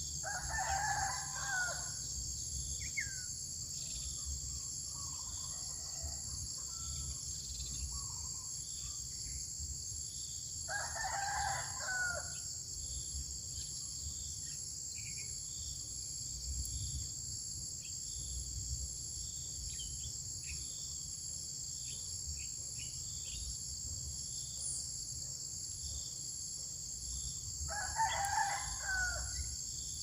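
A rooster crowing three times, each crow lasting about a second and a half, over a steady high buzz of insects.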